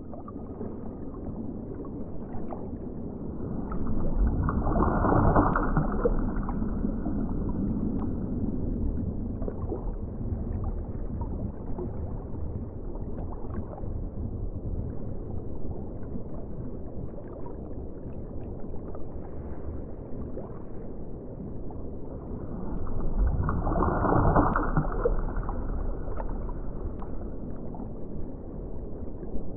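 Muffled underwater ocean ambience: a steady low rush of moving water, fading in at the start and swelling twice, about four seconds in and again about 23 seconds in.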